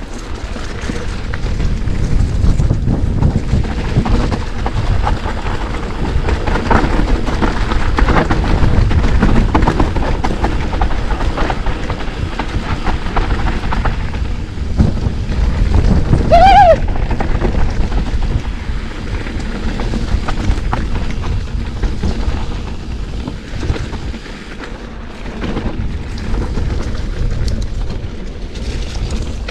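Specialized Turbo Levo electric mountain bike riding down a rough dirt trail: tyres rumbling over the ground and the bike rattling, with wind buffeting the handlebar camera's microphone. A brief pitched squeal rises and falls about halfway through.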